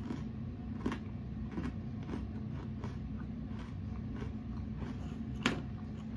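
Quiet room tone with a steady low hum and a few soft clicks, the clearest about five and a half seconds in.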